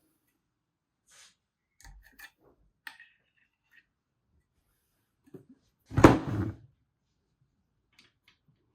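Small clicks and taps of parts and tools being handled while a chain adjuster is fitted into the swingarm, with one louder clatter about six seconds in.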